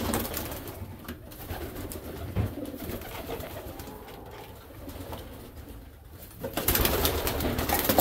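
Domestic pigeons cooing softly in a loft, with a loud rustling rush starting near the end.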